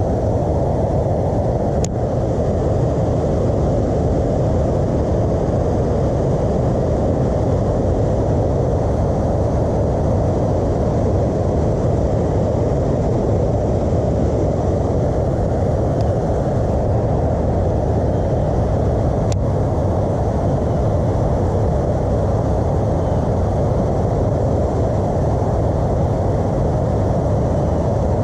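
Steady low rushing noise throughout, with a few faint clicks.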